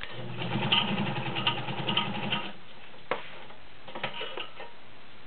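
Kenmore 1203 all-metal sewing machine stitching through six layers of denim for about two and a half seconds, its motor humming under rapid needle strokes, then stopping. A few sharp clicks follow.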